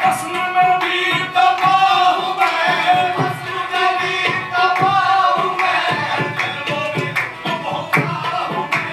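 Qawwali singing with tabla accompaniment: voices holding long, wavering notes over a steady drum beat.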